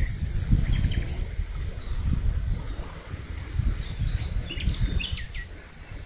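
Several small songbirds chirping and trilling, quick repeated high notes, over the rush of a fast-flowing river and a low, uneven rumble.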